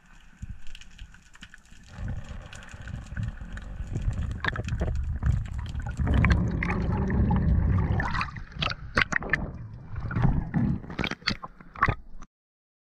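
Underwater sound through a diving camera's housing: a low rumble of moving water with many sharp clicks and crackles, loudest about six to eight seconds in, stopping abruptly near the end.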